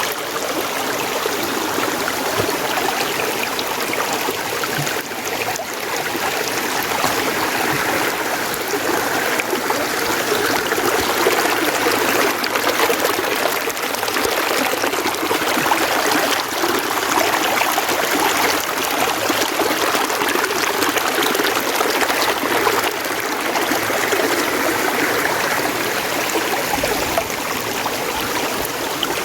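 Mountain stream flowing steadily over rocks, a continuous rushing and trickling of water.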